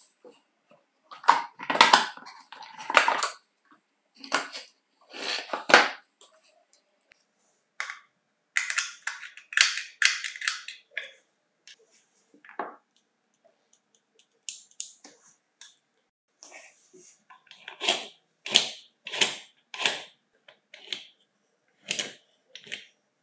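Plastic housing and gear parts of a vintage National KP-150S electric pencil sharpener being handled and taken apart by hand: a series of separate clicks, knocks and short scrapes with brief silences between them.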